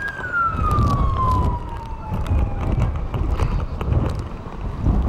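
An emergency vehicle siren winding down in one long falling wail that fades out about two and a half seconds in, over heavy wind rumble on the microphone and scattered knocks.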